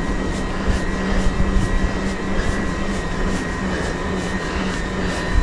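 Electric mountain bike's motor whining steadily under load on a steep climb, with wind rumble on the camera microphone.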